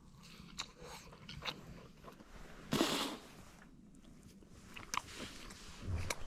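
Close-up chewing of a bite of seared, crusted steak: soft wet mouth clicks and crunches, with a brief louder noisy rush about three seconds in.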